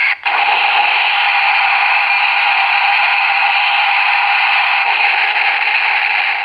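The small built-in speaker of a Bandai Ultraman Geed Primitive sound-and-light figure playing its beam-attack sound effect: a loud, steady, tinny hiss, briefly cut just after the start.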